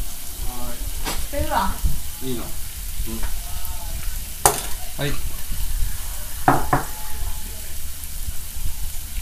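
Sausages, eggplant slices and pork sizzling steadily on an electric hot plate, with a few sharp clicks about halfway through.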